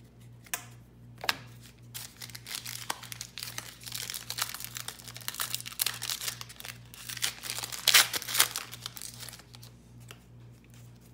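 Foil wrapper of a 2018 Prestige football trading-card pack crinkling and tearing as it is opened by hand, the crackling running for several seconds and loudest near the end.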